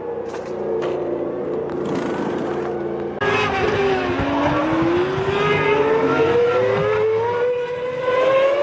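1998 Formula One cars' V10 engines running at racing speed. About three seconds in the sound changes abruptly, and after that one engine climbs steadily in pitch as it accelerates.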